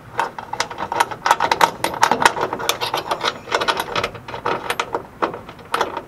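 Hand ratchet wrench clicking in quick runs as a seat-belt mounting bolt is run into a threaded hole in a car's roof rail.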